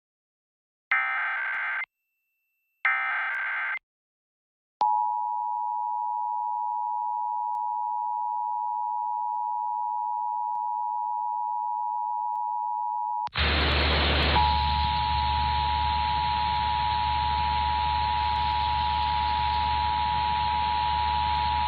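Emergency Alert System required monthly test: the screeching data bursts of the SAME digital header, two of them about a second apart. A second later comes the EAS attention signal, a steady two-tone alert held about eight and a half seconds. It cuts off into a loud hiss with a low hum, and about a second later the two-tone alert sounds again beneath the hiss.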